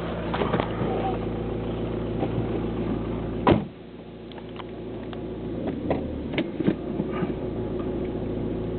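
Car engine idling, heard from inside the cabin. A sharp knock about three and a half seconds in is followed by a drop in the sound, which then slowly builds back, with a few light clicks after.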